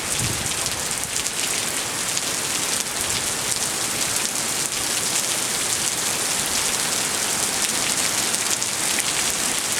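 Heavy hurricane rain pouring steadily: a dense, even hiss with many small drop spatters.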